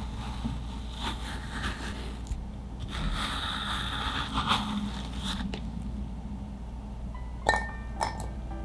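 Ice cream scoop scraping and crunching through firm frozen peach yogurt ice cream in a plastic tub, over soft background music. Near the end, two sharp clinks against a glass.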